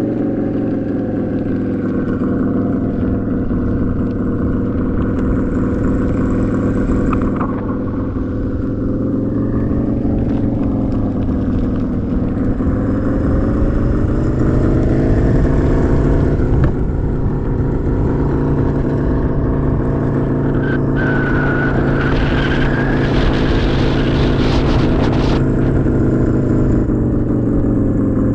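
Simulated Harley-Davidson motorcycle engine sound from the EUC World app's acoustic vehicle alerting system (AVAS), played through a King Song 16X electric unicycle's built-in speakers. It is a steady engine note whose pitch rises and falls a little, and about three quarters of the way through a stretch of hiss with a brief high whistle joins it.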